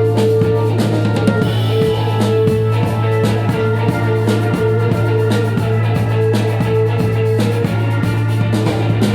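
Live instrumental band music: organ holding long sustained notes over a steady low bass tone, with drum kit and hand percussion playing a busy rhythm.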